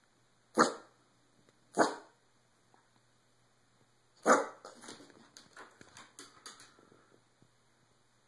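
Boston terrier giving three short, sharp barks, at just under a second, about two seconds and a little after four seconds in, then a run of quieter short noises for a couple of seconds.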